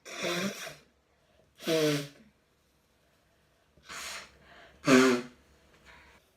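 A woman sneezing several times in a row, each sneeze a short, sharp, voiced burst with a sharp breath in before the loudest one, about five seconds in.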